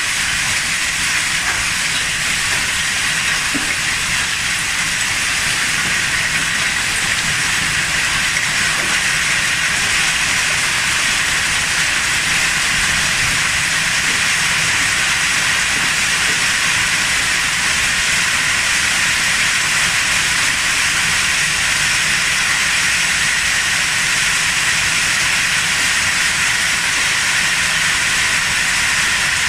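Hailstorm: hail and rain pelting down in a dense, steady hiss that does not let up.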